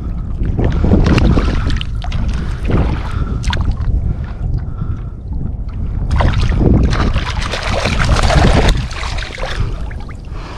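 Wind buffeting the microphone over choppy water, with splashing in the second half as a hooked speckled trout thrashes at the surface while being reeled in.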